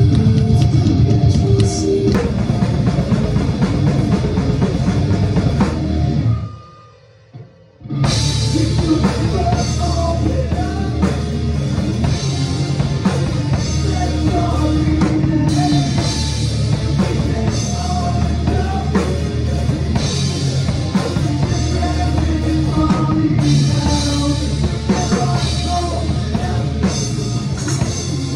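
Rock band playing, led by a drum kit with cymbals. Around seven seconds in the music cuts out almost to silence for about a second and a half, then comes back in at full level.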